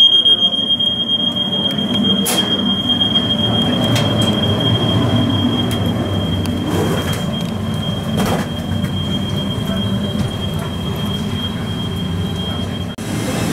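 Security alarm at the boarding gate sounding one steady high tone that cuts off suddenly near the end, over a low rumbling background.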